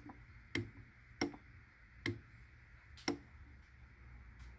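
A series of sharp single clicks, irregularly spaced about once a second, as the Honda CRF450R engine is turned over by hand with its cam cover off.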